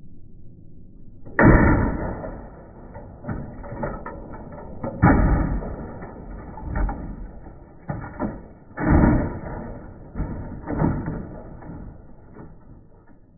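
An old plastic inkjet printer crashes onto asphalt with a loud smash about a second and a half in. Several more crashes and clatters follow over the next ten seconds as it tumbles and breaks apart.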